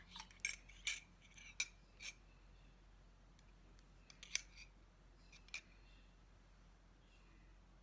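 Metal spoon clinking against the inside of a white ceramic coffee mug while stirring, each tap ringing briefly. There are several quick clinks in the first two seconds and a few more in the middle.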